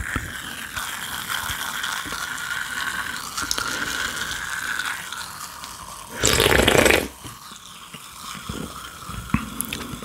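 Carbonated soda fizzing in an open can held close to the microphone, a fine crackling hiss, then about six seconds in a loud slurping sip from the can lasting under a second, followed by a few faint mouth clicks.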